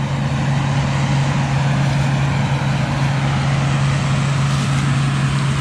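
Combine harvester running while shelling corn: a steady engine and threshing drone with a constant low hum.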